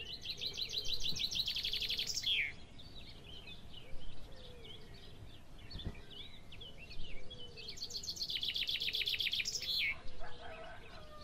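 Wild birds singing: a songbird's fast trill lasting about two seconds, given twice about seven seconds apart, with other birds chirping in between.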